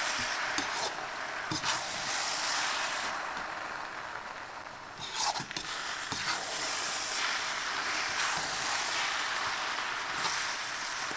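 Hakka noodles and vegetables sizzling in a hot pan as they are sautéed, a steady sizzle with a few clicks and knocks from the stirring utensil.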